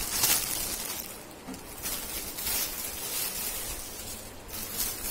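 Clear plastic garment bags crinkling as hands handle the packed clothes, in several short bursts.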